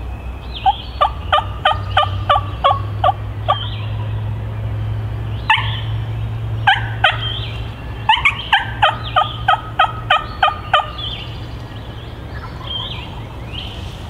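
Wild turkey yelping: two runs of about ten quick, evenly spaced yelps a few seconds apart, with a few single louder notes between them.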